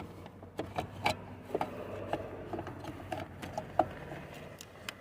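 Irregular light clicks, taps and rubbing as the unbolted airbag control module is worked loose by hand and eased out from under the wiring, with the sharpest knock a little before four seconds in.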